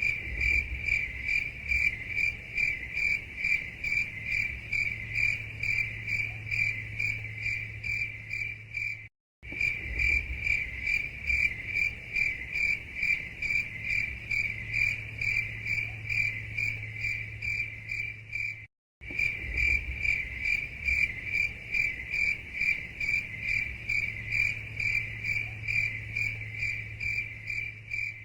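Crickets chirping in a fast, even rhythm, a high-pitched trill pulsing steadily, with a faint low hum underneath. The sound cuts out to silence twice for a split second, about a third and two thirds of the way through.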